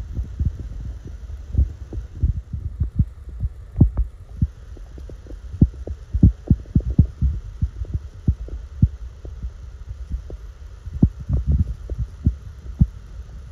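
Creaking from a waterproof phone case as it is held and shifted in the hand: irregular low thuds and creaks, several a second, over a faint steady hiss.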